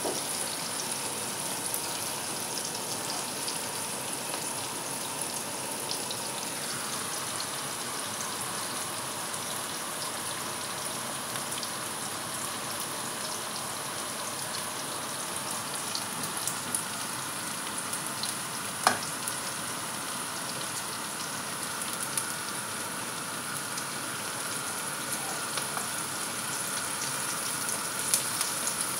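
Sliced onions sizzling steadily in hot oil in a frying pan as they cook down toward golden, with one sharp click about two-thirds of the way through.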